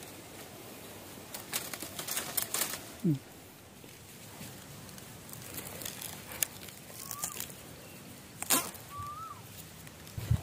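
Dry, fire-charred bamboo twigs and litter crackling and snapping in scattered bursts as a hand pushes through the stems and scratches into the ash at the clump's base. Two short high chirps come in the second half.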